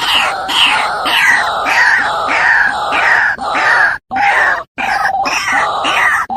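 White-breasted waterhen (ruak-ruak) giving its harsh, repeated call, about two calls a second, played back as a hunting lure. The calling cuts out twice briefly about two-thirds of the way through.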